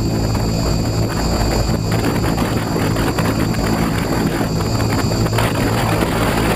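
Align T-Rex 550E electric RC helicopter in flight, heard from its onboard camera: a steady low rotor drone with a high steady whine over it, and wind rushing over the microphone.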